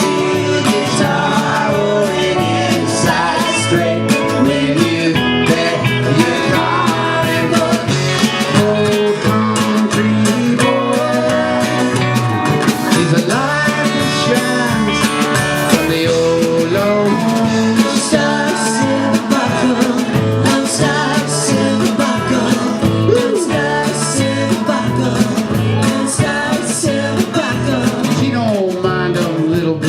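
Live country band playing, with guitars to the fore at a steady, even loudness.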